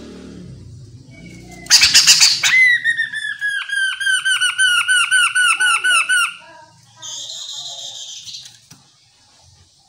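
Chestnut-capped laughingthrush calling: a loud harsh squawk about two seconds in, then a fast series of repeated down-slurred whistled notes, about four a second for nearly four seconds. A raspy, buzzy call follows near the end.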